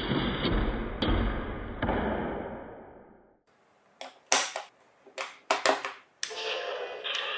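Marbles rolling along a plastic toy marble-run track, a rumble with occasional clicks that fades out about three seconds in. Then a handful of sharp separate clicks as marbles strike plastic track pieces.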